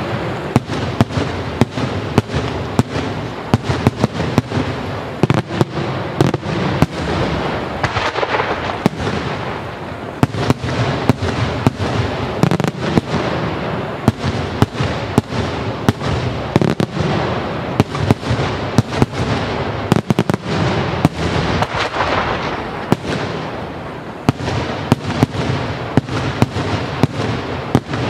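Daytime fireworks: a dense, unbroken barrage of sharp bangs from aerial shells bursting overhead, several a second, with a continuous crackle and echo between them.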